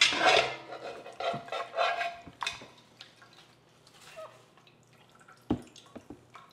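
Wire spider strainer scraping and clattering against a pot as it lifts boiled chicken bones and vegetable scraps out of stock, with broth splashing and dripping back into the pot. The scraping fades after about two and a half seconds, leaving a light drip, and a dull thump comes about five and a half seconds in.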